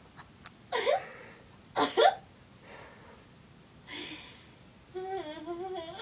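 A woman laughing in her sleep: two short breathy bursts of laughter about one and two seconds in, a couple of fainter ones, then a wavering closed-mouth giggle like a hum near the end.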